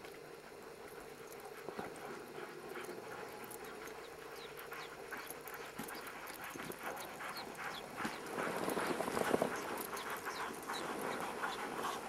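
Sled dog team pulling a dog sled along a snow trail: a run of many small clicks and high squeaks from the dogs and the sled, louder for a couple of seconds about eight seconds in as the team comes close.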